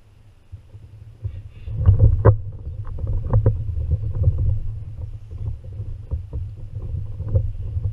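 Hobie Revo kayak knocking and rumbling on the water, heard through the kayak-mounted camera: a low rumble with irregular clunks that start about two seconds in.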